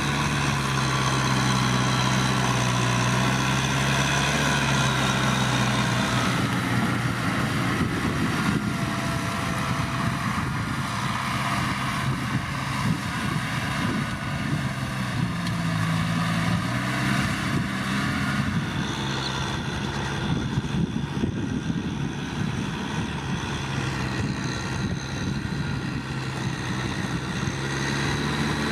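Kubota M6040SU tractor's diesel engine running steadily; about six seconds in the even hum turns rougher and shifts in pitch as the revs and load change, then steadies again near the end.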